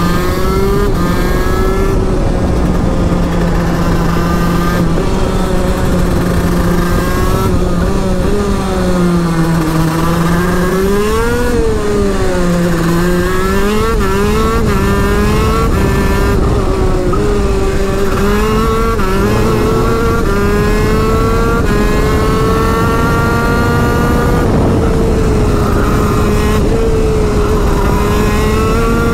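TM KZ-R1 125cc two-stroke shifter kart engine at full racing pace, its pitch climbing and dropping again and again as the driver accelerates, shifts and brakes through the corners.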